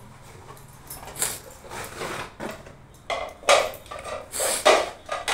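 Cardboard boxes being handled and white serving bowls set down on a tile floor: an irregular string of knocks, scrapes and rustles, louder in the second half.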